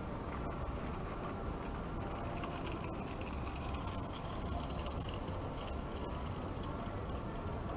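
Steady outdoor city background noise, an even hiss over a low rumble, with no single event standing out.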